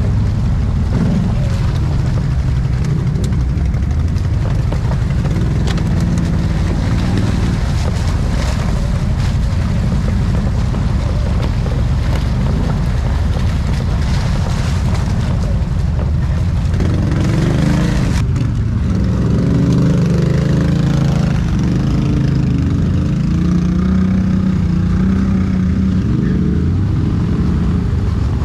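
ATV engine running under way, its pitch rising and falling with the throttle, over a steady rushing noise.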